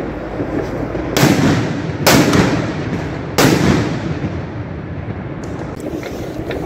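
Fireworks: three loud bangs about a second apart, each echoing for a moment afterwards, over a steady wash of distant fireworks noise. Smaller sharp cracks near the end.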